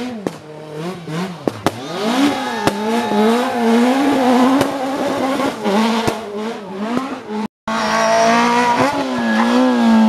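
Rally car engines at full throttle, the revs rising and falling repeatedly through gear changes, with several sharp bangs in the first two seconds. About three-quarters through, a cut leads to a second car revving hard.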